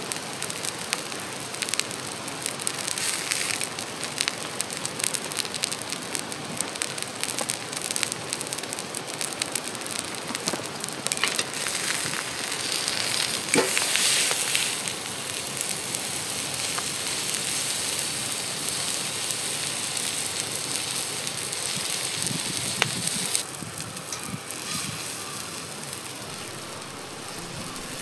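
Thick steak sizzling on a hot iron griddle plate over a wood fire, with scattered crackles. The sizzle is loudest around the middle, as the steak is moved on the plate, and turns quieter for the last few seconds.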